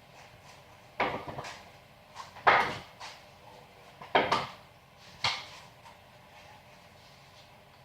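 A handful of knocks and clatters, about a second apart, as hard parts are handled and set down; the loudest comes about two and a half seconds in.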